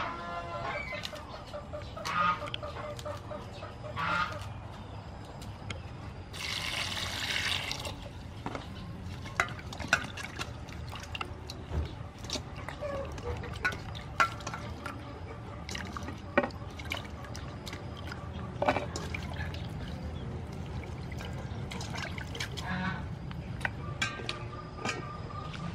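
Water splashing and dripping as lettuce leaves are rubbed and swished by hand in a stainless steel bowl of water, with small knocks against the bowl and a brief rush of water about six seconds in. Geese honk a few times in the first seconds and once near the end.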